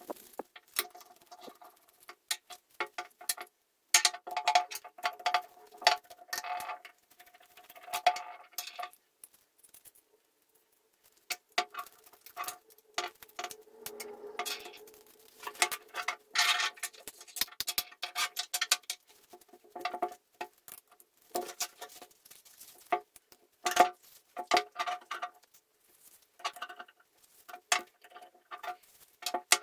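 Old two-speed enclosed breast drill being worked by hand: runs of rapid metallic clicking and rattling from its enclosed gears, which make a bad noise, broken by pauses and clinks of small metal parts as the gear housing is opened.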